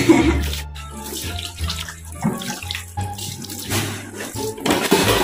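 Water running from a wall tap and splashing onto a plastic tub and then onto plates being rinsed under the stream, with a louder splash near the end.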